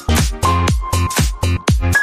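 Background electronic dance music with a steady beat, about two kick-drum strokes a second.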